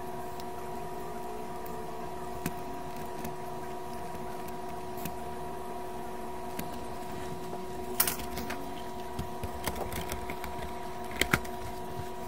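Steady mid-pitched electrical hum from workbench equipment, with scattered light clicks and taps of a tool and hand on a mixer's circuit board, a cluster about eight seconds in and two sharper clicks near the end.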